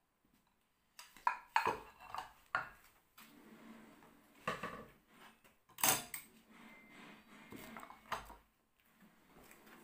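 Dishes, bowls and cutlery being picked up and stacked: a string of irregular clinks and clatters, loudest about a second and a half in and again around six seconds in.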